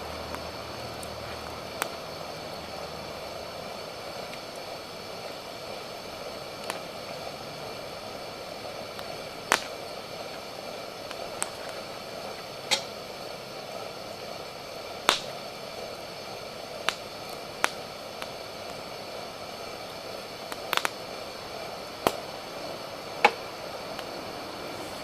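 Wood campfire crackling: irregular sharp pops and snaps over a steady low hiss.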